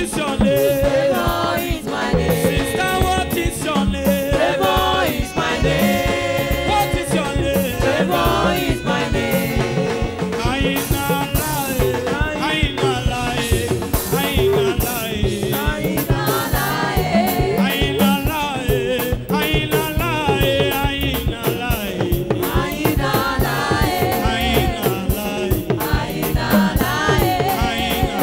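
Gospel music with group singing over a steady, driving beat.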